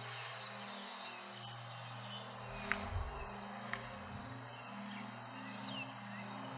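Insects chirping in rapid high-pitched pulses, about two or three a second, with a few short bird calls mixed in.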